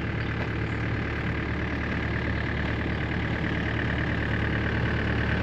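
Engine of a log-grappling machine running steadily, an even hum with no sharp knocks.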